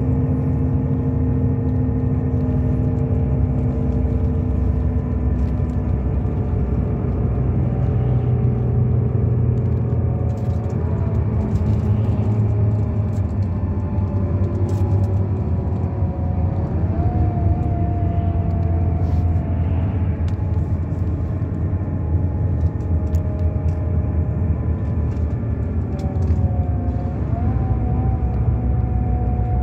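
Road vehicle driving at steady speed, heard from inside: a constant low rumble of engine and tyres, with a few engine tones drifting slowly up and down in pitch.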